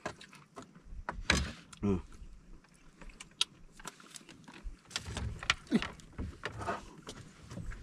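Scattered light clicks and knocks of a spoon and plastic bowls being handled as food is dished out.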